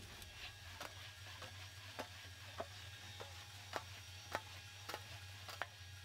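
Sheet-metal fender panel being wheeled back and forth through an English wheel, planishing and adding area. It is faint, with sharp light clicks and ticks every half second to a second as the panel shifts and flexes between the wheels, over a steady low hum.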